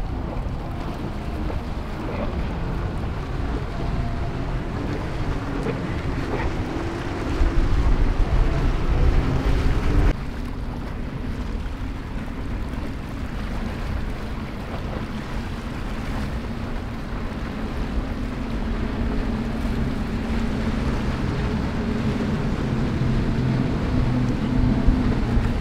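Powerboats running past at speed: a low engine drone mixed with the rush of hull and spray, with wind buffeting the microphone. A louder rush lasts a couple of seconds and cuts off abruptly. Near the end the outboard drone grows louder as a boat passes close.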